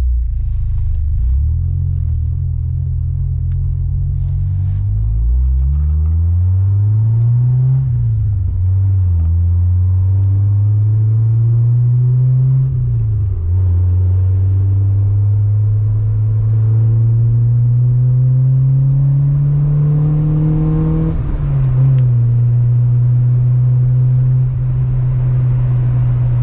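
Honda EK Civic engine heard from inside the cabin, pulling up through the gears over steady road noise. Its pitch climbs and then drops sharply at each of three upshifts, and it is still rising slowly through the last gear.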